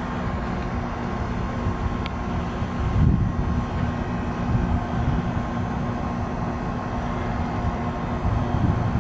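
RunTru heat pump outdoor unit running in defrost: a steady compressor hum over hiss. Two brief low rumbles swell up, about three seconds in and again near the end.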